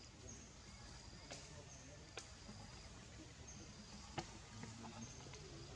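Faint outdoor background: a high, thin note repeating every second or so, with a few sharp clicks scattered through it.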